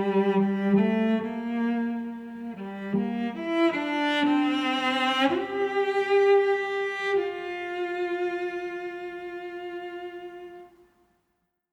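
Slow bowed-string music, cello and violin, playing long held notes with a few sliding pitch changes. A last note is held and fades away near the end, leaving silence.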